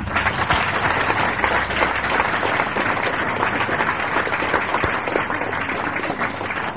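Audience applauding. The applause starts suddenly and thins out near the end.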